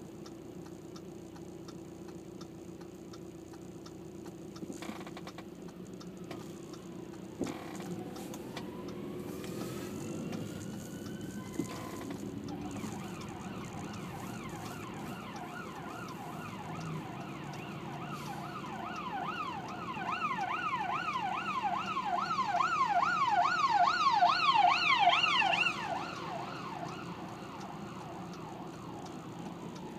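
Emergency vehicle siren: a slow rising wail, then a fast up-and-down yelp of about three sweeps a second that grows louder as it approaches and cuts off abruptly a few seconds before the end, over steady car hum.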